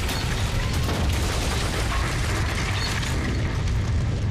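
Building explosion as a drama sound effect: a deep, continuous rumble with crackling debris throughout.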